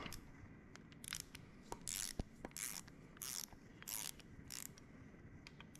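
Ratchet wrench clicking faintly in short strokes, about one every two-thirds of a second, as the bolts of a compressor seal cover are drawn in evenly.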